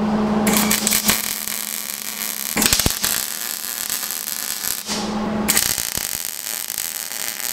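Wire-feed welder arc crackling as it tack-welds expanded steel mesh onto a steel frame. There are two runs, about four seconds and then about two seconds, with a short break about five seconds in.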